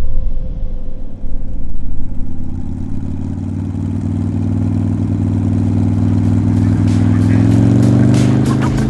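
An engine droning, its pitch slowly rising, with a run of sharp ticks joining near the end.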